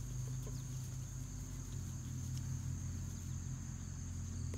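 Steady outdoor background: a continuous low mechanical hum, like a distant motor, under a constant high-pitched insect drone, with a few faint rustles.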